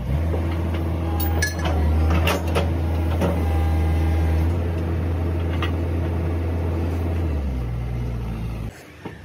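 A diesel engine running with a steady deep hum, its speed picking up at the start and easing back near the end before the sound drops away. A few sharp metallic clinks from the steel track parts sound over it in the first few seconds.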